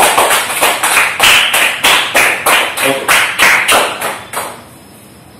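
A small group clapping in a steady rhythm, about three claps a second, as applause for a finished talk. The clapping stops about four and a half seconds in.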